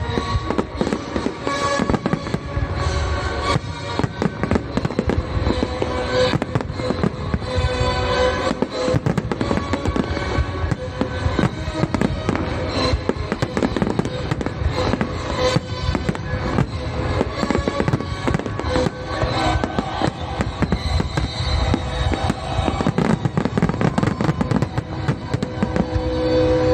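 Fireworks display with shells bursting and crackling in rapid, dense succession, over accompanying music.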